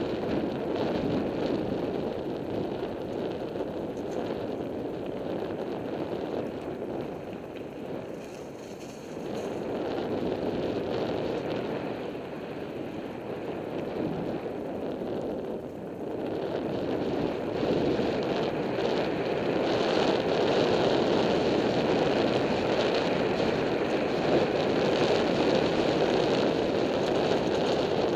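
Wind buffeting the microphone of a camera moving fast down a dirt trail, a steady rushing that swells and dips and grows louder a little past halfway.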